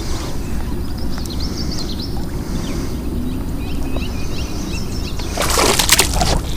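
Water splashing loudly for under a second about five and a half seconds in, over a steady low rumble, with small birds chirping.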